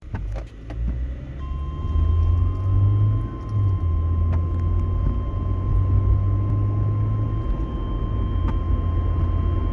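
NOAA Weather Radio warning alarm tone, the steady 1050 Hz attention signal that announces a flash flood warning. It comes in about a second and a half in and holds one unbroken pitch, over a loud low rumble.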